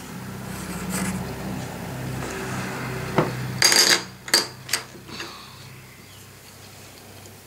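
Handling noise building up over the first few seconds, then small plastic Mini LUK tiles clattering loudly about three and a half seconds in, followed by a few sharper clicks as single tiles are picked up and set down on the plastic board.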